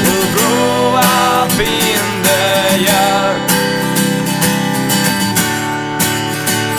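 Folk punk song's instrumental passage: acoustic guitar strumming steadily, with a separate melody line bending over it in the first three seconds or so.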